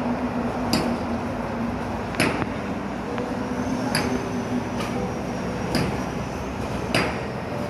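Five sharp hammer blows with a ringing clink, about one and a half seconds apart, from building construction work, over the steady noise of expressway traffic.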